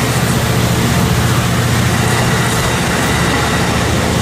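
Amtrak Pacific Surfliner double-deck passenger cars rolling past close by, a steady low rumble of wheels on rail.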